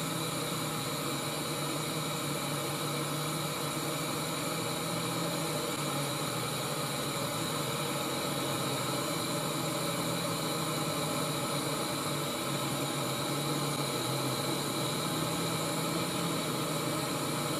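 Gas canister backpacking stove burner running at full flame under a titanium pot of water, a steady hiss with a low hum underneath; the water is heating toward the boil.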